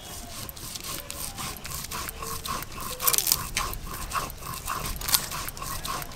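Fast, even panting-like strokes, three or four a second, over light scraping and rustling of giant freshwater prawns being cleaned by hand.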